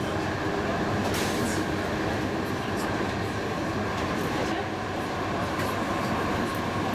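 Cologne–Bonn light-rail tram running steadily along the track, an even rumble with a steady electric whine from the drive. A single clack sounds about a second in.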